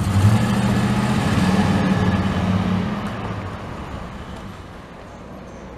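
A van driving past close by: a low engine hum, loudest in the first three seconds, then fading as it moves away down the road.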